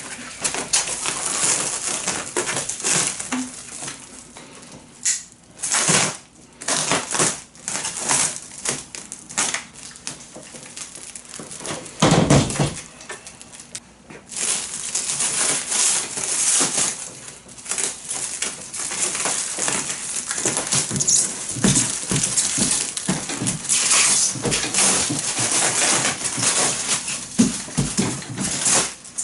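Plastic stretch-wrap film crackling and rustling as it is torn off the roll and pressed and smoothed over a cardboard box. A dull thud comes about twelve seconds in.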